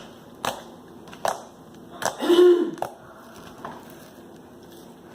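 Icy slime made with diaper filling being poked and squeezed by hand, giving faint sharp clicks and cracks about once a second. A brief hum-like voice sound comes about two seconds in.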